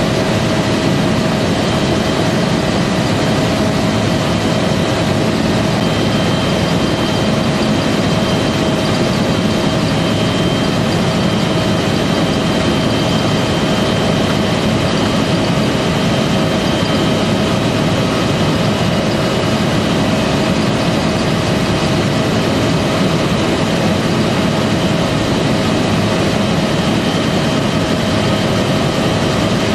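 UH-1 Huey helicopter in cruise flight, heard from inside the cockpit. The turbine engine and rotor give a loud, steady rumble with a constant whine on top.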